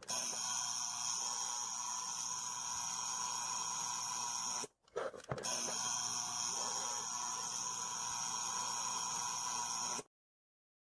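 Alarm clock sound, a steady hissing buzz with a few fixed tones in it. It plays twice, each about four and a half seconds, with a short break between, and cuts off suddenly.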